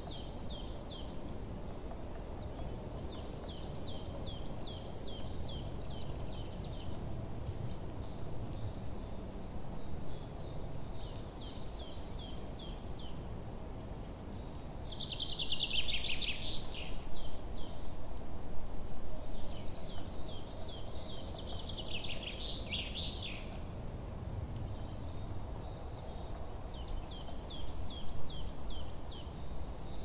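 Forest ambience: songbirds singing in repeated quick phrases of high chirping notes over a steady low background noise. Twice, about halfway and again a little later, a louder, rougher burst of bird song stands out.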